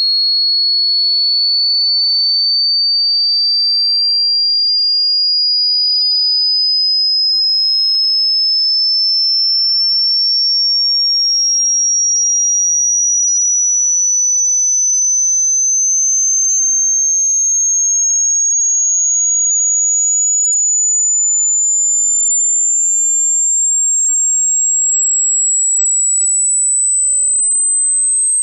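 Hearing-test sine tone: a single high, pure electronic tone rising slowly and steadily in pitch, climbing about an octave, at an even loud level.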